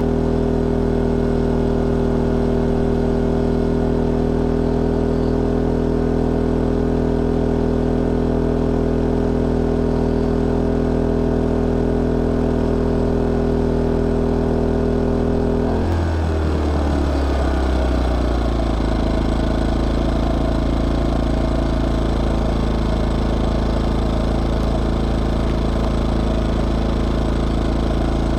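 Craftsman 2200i inverter generator's small engine running steadily. About sixteen seconds in, its pitch falls over two or three seconds and it settles at a lower, steady speed.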